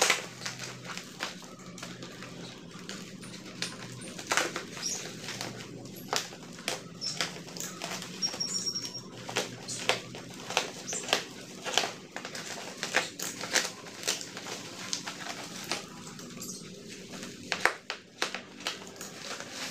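Plastic packaging rustling and crinkling in irregular sharp crackles as a large parcel is handled and opened by hand.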